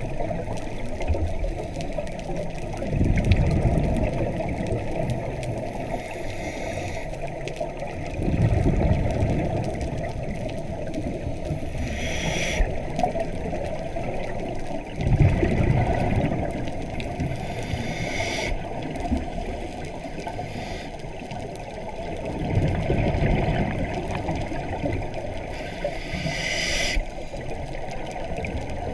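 Scuba breathing heard underwater through a camera housing: a bubbly rumble of exhaled air from the regulator about every six seconds, four in all, with short hisses of inhaling in between, over a steady muffled underwater wash.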